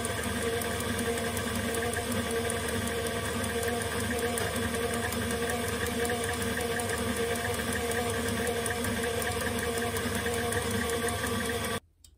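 Stand mixer running steadily at speed, its wire whisk beating egg yolks and sugar for castella batter toward the ribbon stage; the motor cuts off suddenly near the end.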